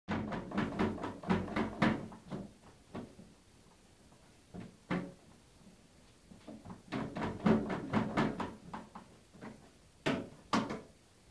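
Plastic toilet seat and the tray fitted in it knocking and creaking as a cat climbs on and shifts its paws on the rim, in several bursts of clicks and knocks with quieter gaps between.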